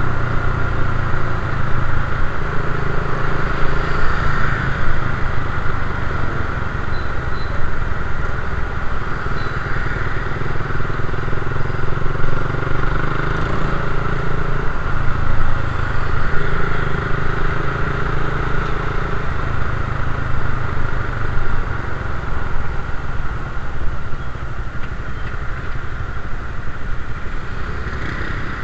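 Suzuki Raider 150 carburetted single-cylinder four-stroke engine running while the motorcycle is ridden, its pitch rising and falling every few seconds with the throttle.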